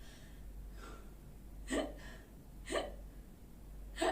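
A person hiccupping: three sharp hiccups about a second apart, with a fainter one before them.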